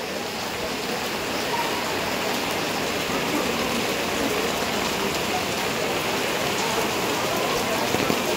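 Heavy rain falling steadily, an even hiss, with rainwater running across the paved temple floor.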